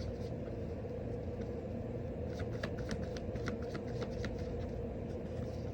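Tarot cards being shuffled: a run of quick, soft card clicks through the middle few seconds, over a steady low background hum.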